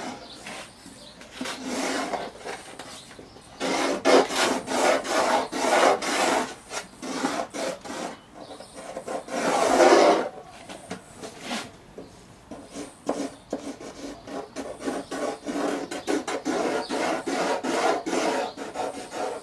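A pencil scratching along plywood as it traces around the edge of a plywood template, in several long strokes of a few seconds each with short breaks between them.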